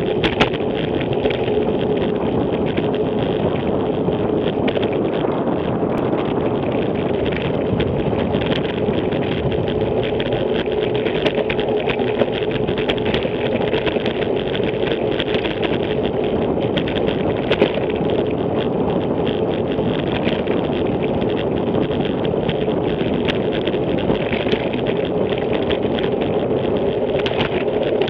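Steady wind and road noise on a bicycle-mounted camera's microphone while riding, with a constant low hum and frequent small clicks and rattles.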